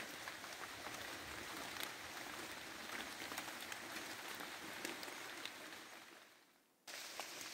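Light rain pattering on rainforest foliage, a steady hiss with scattered drops. It fades out about six seconds in, drops to silence for under a second, then comes back.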